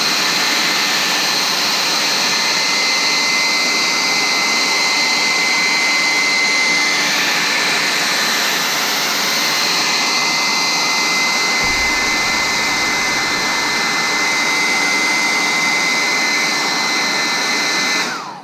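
Handheld hairdryer blowing steadily with a high motor whine, heating a plastic touchscreen bezel to soften its adhesive; it is switched off near the end.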